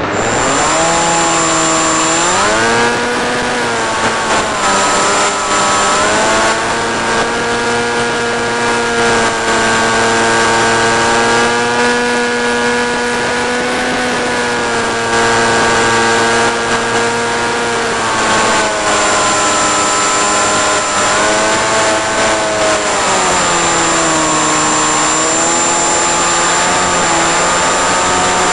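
Electric motor and propeller of a 1.5 m Eagle Wing RC plane, heard from on board, running with a steady whining drone. The pitch rises about two seconds in as the throttle opens and holds for a long stretch. It then falls and wavers over the last third as the throttle is eased back and opened again.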